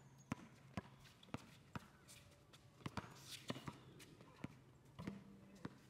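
Basketball being dribbled on an asphalt court: sharp bounces about two a second, with light footsteps.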